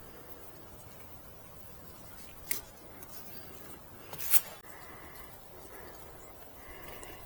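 Guy line being pulled taut through a tensioning hitch on a greenhouse frame: two short sharp pulls about two seconds apart, the second louder and a little longer.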